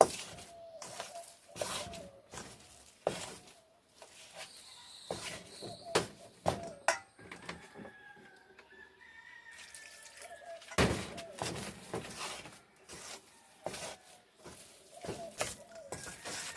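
A spoon stirring a thick batter in a bowl, knocking and scraping against the bowl at irregular moments, with a few louder knocks. Birds call faintly in the background.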